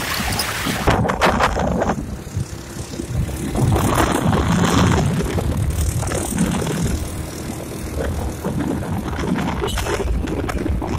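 A moving vehicle on the road: steady low engine and road rumble with scattered knocks and rattles.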